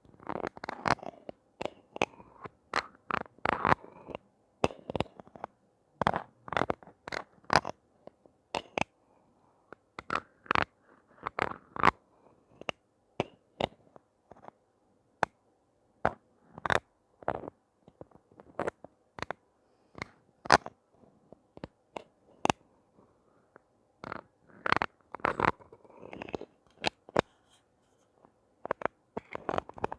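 Hands handling toy packaging and plastic toys: irregular sharp clicks, taps and crinkles, some in quick clusters.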